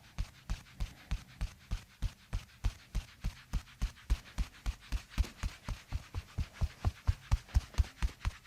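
Rhythmic percussive massage strikes on a back: dull, evenly spaced thumps, about three to four a second, getting a little quicker near the end, over a faint steady low hum.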